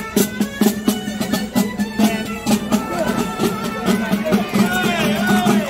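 Traditional folk music: a high piped melody over a steady low drone, with regular drumbeats.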